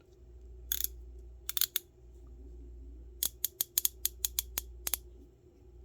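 Varma 3/8-inch-drive 90-tooth single-pawl ratchet being worked by hand to check its function, the pawl clicking over the gear teeth. A few scattered clicks come first, then a quicker run of about a dozen sharp clicks.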